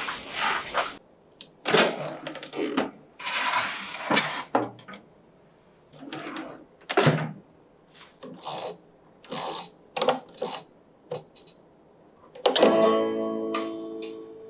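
Clatter of a baking tray going into a Balmuda oven and the door shutting, then a series of short sharp ticks as the oven's dial sets the temperature and time. About twelve seconds in, the oven plays its start-up chime, a short ringing guitar-like phrase, as the bake begins.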